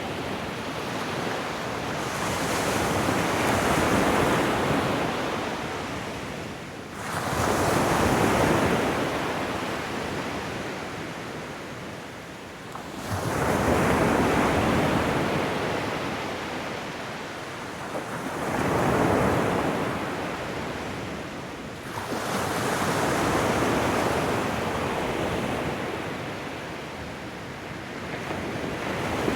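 Ocean waves breaking, one surge of rushing surf about every five to six seconds, each rising quickly and then washing away more slowly.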